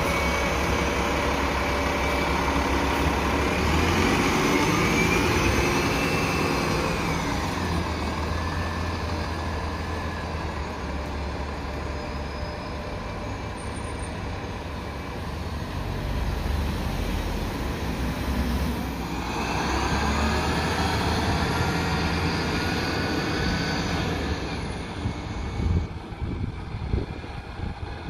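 Diesel city transit bus pulling away from a stop and accelerating off down the street, a low engine rumble with a whine that rises in pitch through the first third. Past the middle, another passing vehicle brings a second rising whine before the traffic sound fades near the end.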